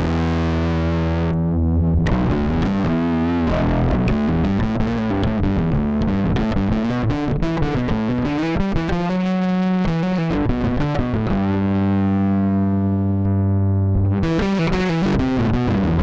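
Yamaha BBNE2 electric bass played through an EBS MetalDrive distortion pedal, giving a heavy distorted bass tone. Long held notes at the start and again past the middle frame a quicker passage of changing notes.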